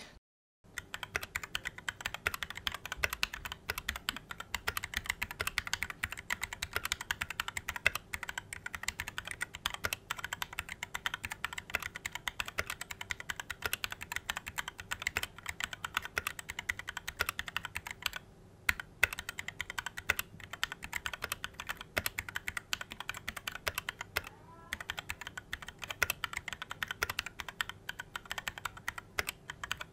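Fast typing on a Sades Kunai 65% hot-swap mechanical keyboard: a dense run of keystroke clacks, with a short pause about eighteen seconds in.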